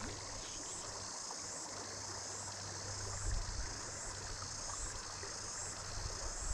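Steady, high-pitched chorus of cicadas, with a faint low hum beneath it.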